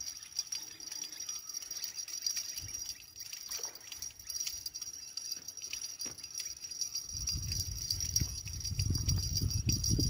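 A carp being played on rod and reel: light clicking and rattling as the reel is wound in. From about seven seconds in, a low rumble of splashing and handling builds as the fish comes to the surface near the bank.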